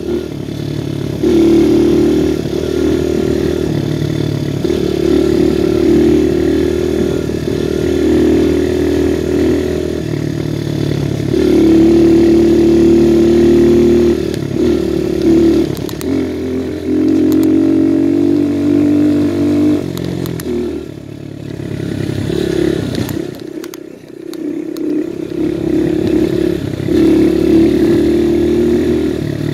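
Viper 150cc dirt bike's single-cylinder engine running under throttle on the move, its pitch stepping up and down with gear and throttle changes. About two-thirds of the way through, the throttle is rolled off and the engine drops low for a few seconds, then pulls strongly again.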